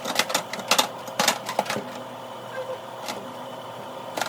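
A quick run of sharp clicks and clattering knocks, mostly in the first two seconds, as a vending machine is worked on, over a steady electrical hum.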